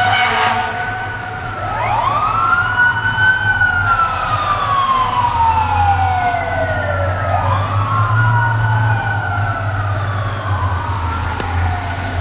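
Fire apparatus sirens wailing. The pitch rises quickly and falls away slowly over several seconds, again and again, with a short horn blast at the very start and the steady low rumble of the trucks' engines underneath.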